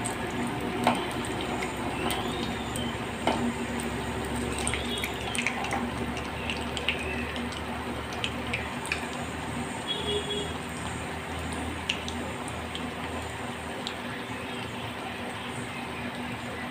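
Potato tikkis frying in hot oil in a pan: a steady sizzle with small scattered pops and crackles.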